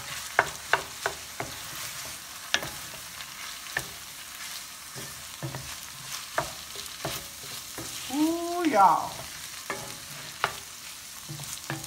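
Rice frying and sizzling in an enameled cast-iron skillet as a wooden spoon stirs it, with repeated sharp knocks of the spoon against the pan. About eight seconds in, a brief wavering pitched sound rises over the frying.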